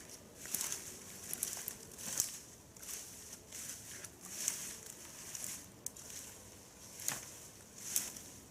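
Footsteps crunching on a forest path: short, uneven crunches, roughly one every half second to second.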